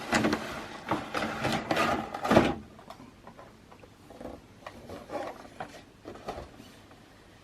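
A cardboard toy box being opened by hand: scraping and tearing of the cardboard, loudest for the first two and a half seconds, then softer scattered rustling and handling of the packaging.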